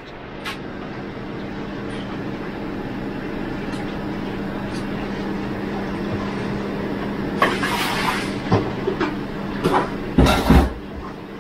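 Steady hum of shop-kitchen equipment with a low even tone, joined by a few clattering knocks, the loudest about ten seconds in.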